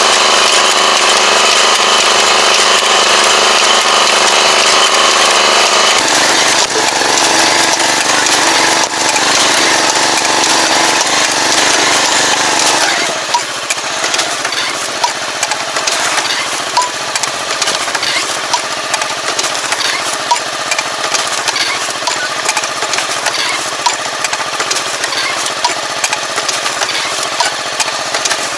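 Small engine of a walk-behind tobacco transplanter running steadily. About halfway through, the planting mechanism takes over, clicking about once a second as it sets seedlings through the plastic mulch.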